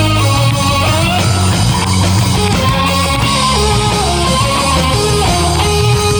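A rock band playing live: electric guitar over bass and a drum kit, with held melody notes that bend slightly in pitch.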